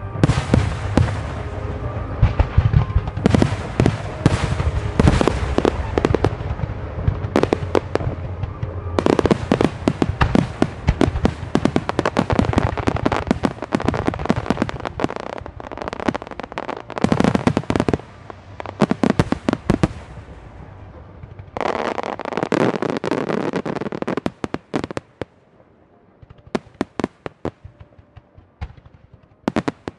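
Fireworks starmine barrage: aerial shells fired in rapid succession, bursting in a dense, continuous stream of bangs and crackle. It thins out about 24 seconds in to scattered single bangs.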